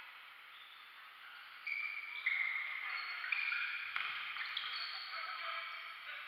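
Indoor-court shoes squeaking on a hardwood futsal floor as players run and turn: short high squeaks that shift in pitch and overlap, thicker from about two seconds in. A single thud of the ball being kicked comes about four seconds in.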